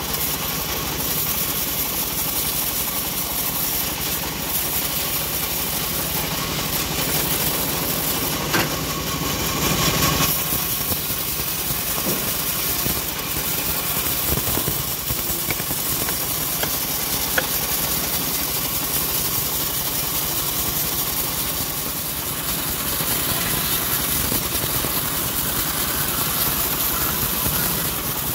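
Homemade band sawmill running and ripping through an acacia log: a steady machine drone with the hiss of the blade in the wood, which gets louder briefly about nine seconds in.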